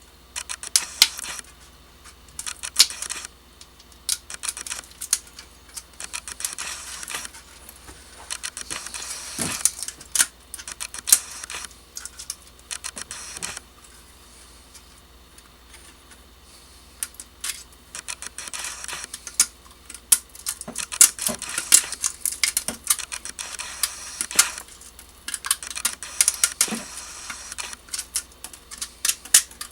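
Support material being picked, snapped and scraped off a wood-filament 3D print: irregular small clicks, cracks and scrapes in quick runs, with a quieter stretch about halfway through.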